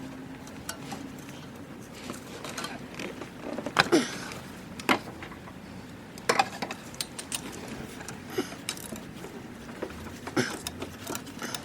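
Metal hand tools clinking, tapping and knocking against metal during spark plug work on a car engine, with irregular small clicks and a few sharper knocks about four, five and six and a half seconds in.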